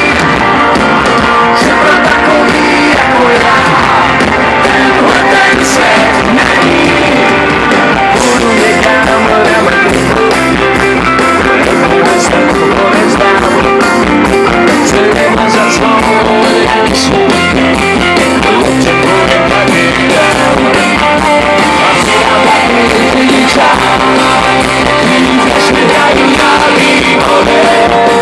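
Live rock band playing loudly through a stage PA, heard from the crowd: electric guitars, bass and drums keep a steady beat.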